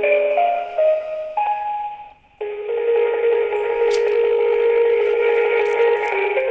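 Telephone hold music heard over the phone line, thin and cut off above the voice band: a simple synthesized melody of short stepped notes, a brief drop-out about two seconds in, then long held chords.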